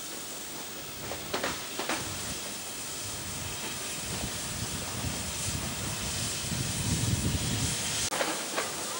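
Steam locomotive 3801, a C38 class Pacific, pulling slowly away with its train, steam hissing steadily from the open cylinder drain cocks. Pairs of sharp chuffs come about a second and a half in and again near the end, and a low rumble swells about seven seconds in.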